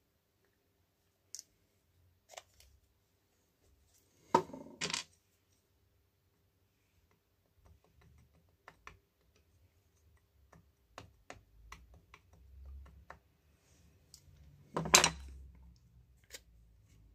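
Small hard parts being handled on a work surface: scattered light clicks and taps, with two louder clattering knocks, one about four seconds in and one near the end.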